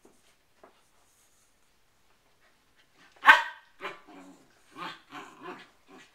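Poodle barking: one loud, sharp bark about three seconds in, followed by a quick run of five or six shorter, quieter barks.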